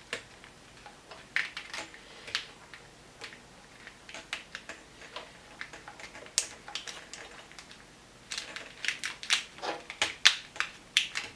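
Irregular sharp clicks and crinkles of wires being worked into corrugated plastic split loom on a car wiring harness, coming thicker and faster near the end.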